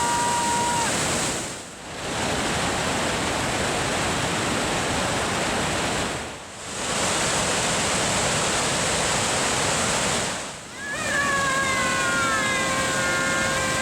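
Waterfall's rushing water: a steady, loud rush of noise. It drops away and comes back three times, and a held, pitched tone sounds over it near the end.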